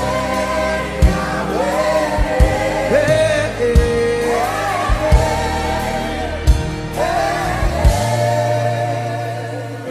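Gospel worship music: voices sing long, wordless, sliding notes over a band, with sharp drum hits every second or so and a held bass note near the end.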